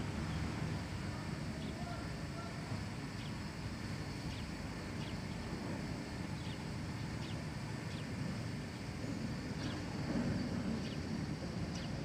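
Outdoor garden ambience: a steady low rumble, with faint, short, high chirps repeating about once a second.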